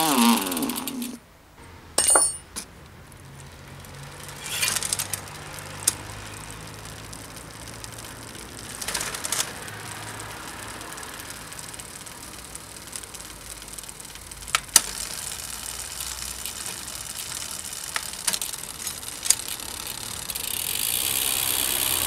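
Bicycle drivetrain on a work stand: a buzz that falls in pitch as the wheel and cranks spin down at the start, then scattered sharp clicks and knocks of hands-on adjustment, and the chain and cranks running again about twenty seconds in.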